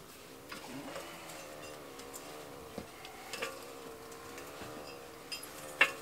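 Light metallic clinks and knocks from a stainless-steel chimney flue section being handled on a metal ladder, with one sharp, louder metal knock near the end. Under them runs a steady low hum that wavers slightly in pitch.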